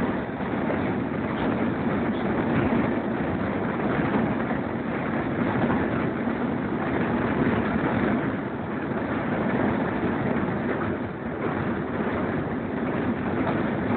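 Steady running noise of a steam-hauled passenger train in motion, heard from an open carriage window: wheels rolling on the rails and air rushing past the train.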